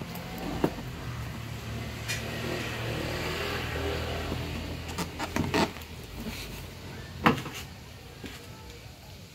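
Cardboard box being turned over and handled: rubbing of cardboard and a few sharp knocks, the loudest about seven seconds in, over a low steady rumble that swells and fades in the first half.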